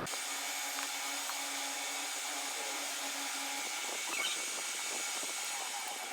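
Steady mechanical hiss with a faint hum that stops a little past halfway.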